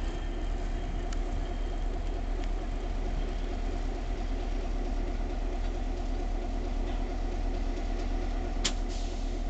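Diesel-electric locomotive engine idling steadily, a low, even hum. A single sharp click sounds near the end.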